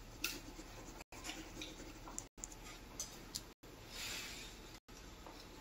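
Sheets of drawing paper handled on a tabletop: a few faint taps and ticks, and a soft brush of paper sliding about four seconds in.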